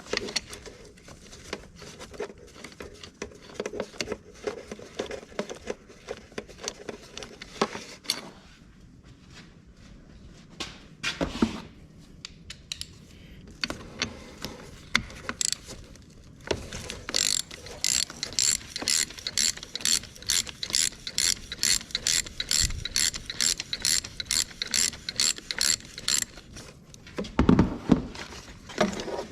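Hand socket ratchet clicking as a 12 mm bolt on the steering shaft bushing mount is backed out: irregular short strokes at first, then a steady run of about three or four clicks a second through the second half. A couple of louder clunks, one about a third of the way in and one near the end.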